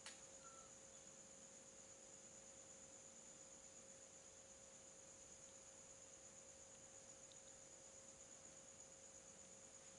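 Near silence: faint steady hiss with a thin steady hum and a high-pitched whine, and one brief click at the very start.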